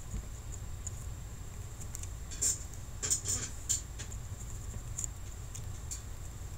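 Faint, brief scratching and rubbing ticks of a circuit board being scrubbed clean with alcohol, in a short cluster a few seconds in, over a low steady hum.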